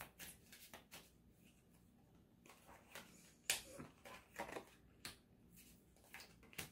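Quiet handling of a deck of oracle cards: cards slid off the deck and laid down on a table, with a few soft clicks and rustles, the sharpest about three and a half seconds in.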